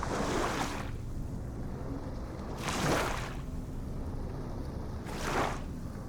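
Ocean waves breaking and washing in: three separate surges of surf noise, about two and a half seconds apart, over a steady low rumble of the sea.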